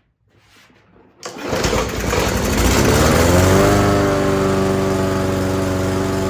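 Toro lawn mower's single-cylinder four-stroke engine catching on a shot of starting fluid about a second in, its pitch rising as it comes up to speed, then running steadily.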